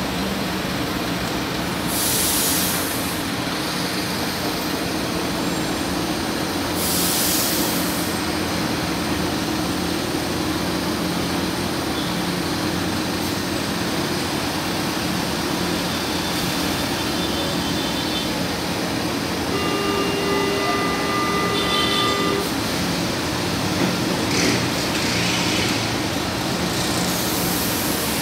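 São Paulo Metro Line 1 train standing at the platform, its equipment giving a steady low hum, with several short hisses of air. About three-quarters of the way through, a steady warning tone sounds for a few seconds, ahead of the doors closing.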